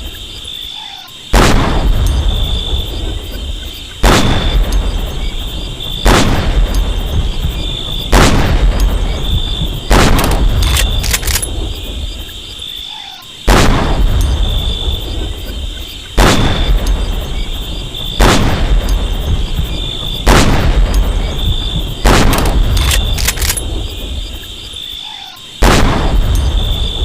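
M40A1 sniper rifle, 7.62 mm, firing single shots about two seconds apart, each shot followed by a long echoing tail. The shots come in runs of four or five with a brief pause between runs. A steady high-pitched tone runs underneath.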